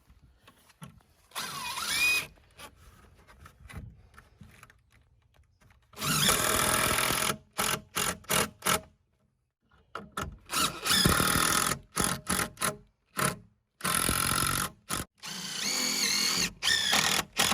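Power drill driving screws in a series of bursts, some over a second long and others short trigger taps, its motor pitch rising as it spins up in the first burst.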